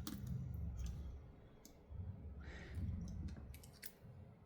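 Scattered light clicks and taps of small repair tools on the screws and frame of a Samsung Galaxy S23 Ultra as the 5G antenna screws are taken out, over soft handling rustle.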